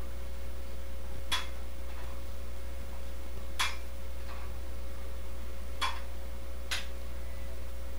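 Sharp clicks from a dumbbell knocking at each repetition of a one-arm bicep curl, about every two seconds, the last two close together. A steady low hum runs beneath them.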